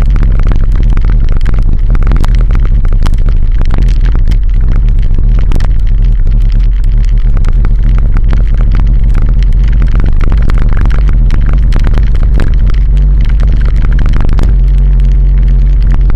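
Wind buffeting and road noise on a vehicle-mounted Kogan action camera riding a rough, cracked asphalt road: a loud low rumble full of knocks and rattles. Near the end the knocks thin out and the noise turns steadier as the road changes to concrete.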